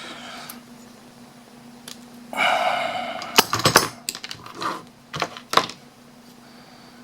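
Small glued plastic parts being handled: a scraping rasp about two seconds in, then a quick run of sharp clicks and taps, over a steady low hum.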